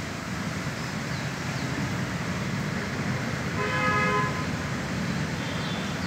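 A vehicle horn toots once, a short flat tone under a second long about four seconds in, over a steady low background rumble.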